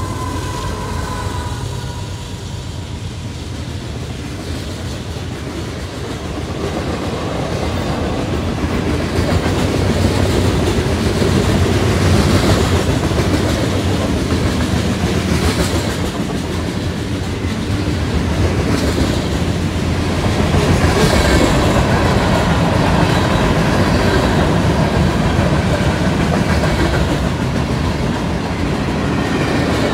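Union Pacific freight train rolling past: the rear locomotive's diesel fades away and a long string of covered hoppers and gondolas goes by with a steady rumble and clatter of steel wheels on rail. The clatter grows louder about eight seconds in.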